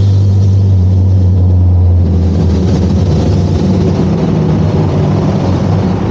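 Benelli TRK 502 X motorcycle's parallel-twin engine running under way, a steady low drone that turns rougher and slightly quieter about two seconds in.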